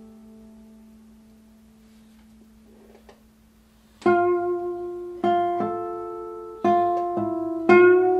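Solo nylon-string classical guitar: a single low note rings and slowly fades for about four seconds, then plucked notes and chords start again loudly, struck every half second to a second.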